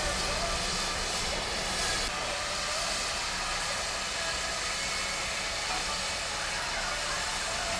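Standing steam locomotives, among them the GWR Manor class 4-6-0 7812 Erlestoke Manor, simmering and hissing steam at rest. The high hiss drops back about two seconds in.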